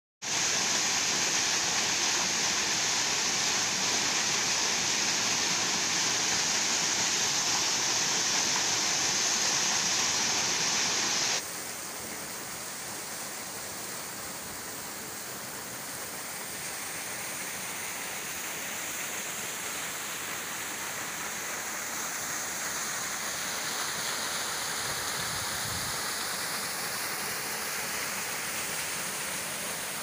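Small waterfall splashing over rocks into a pool: a steady rush of falling water. About eleven seconds in it drops suddenly to a softer rush.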